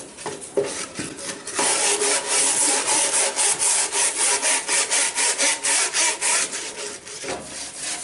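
Wire brush scrubbing a wooden beehive frame in quick back-and-forth strokes, about three a second, scraping off old wax and comb softened in hot water. The strokes start light, become steady about a second and a half in, and stop near the end.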